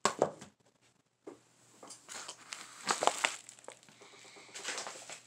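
Plastic DVD cases being handled, crinkling and clicking in short, irregular bursts.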